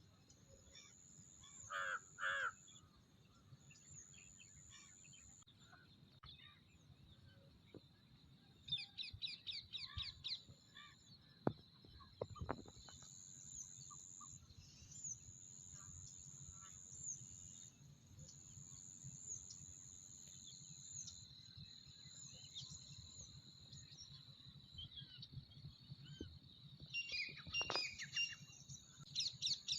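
Morning birdsong: crows cawing, two loud caws about two seconds in and more calls near the end, over steady high-pitched chirping from small birds, with a quick run of chirps about nine seconds in.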